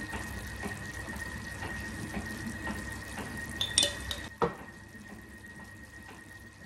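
Pot of quince simmering on a gas hob, a steady watery hiss, with two sharp clinks of a metal spoon against the pot about four seconds in.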